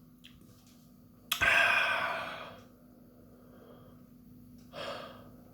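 A man's loud breath, starting sharply about a second in and tailing off over a second or so, then a shorter, fainter breath near the end, as he reacts to the burn of a superhot chili pod.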